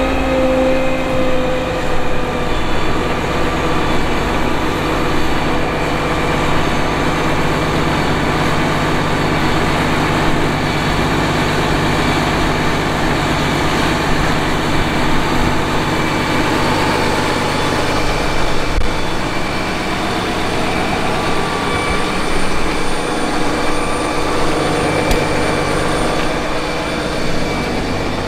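Fendt 1167 Vario MT tracked tractor's diesel engine running steadily under load while pulling a deep subsoiling ripper, with the rubber track running gear rolling along. Its note drops slightly at the start.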